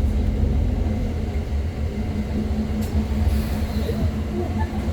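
Bus engine pulling hard on an uphill climb: a loud, steady low drone with a steady hum over it. A few faint, short squeaks come near the end.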